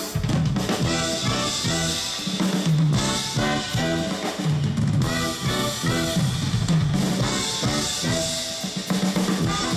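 Live band playing upbeat dance music: a drum kit keeps a steady beat with cymbals under saxophones, trumpet and electric guitar.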